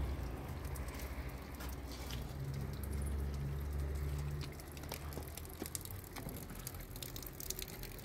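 Light, irregular patter of rain and drips on surfaces, with a low rumble underneath that is strongest about three to four and a half seconds in.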